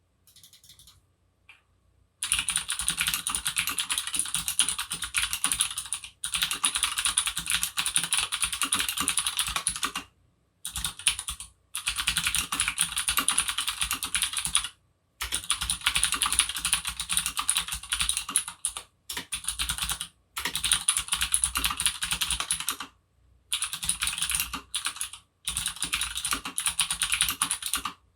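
Fast continuous typing on a Leopold FC750R PD keyboard with Cherry MX Blue clicky switches in a steel plate, a dense run of sharp clicks. A few light clicks come first, then the typing runs in bursts of a few seconds with brief pauses between them.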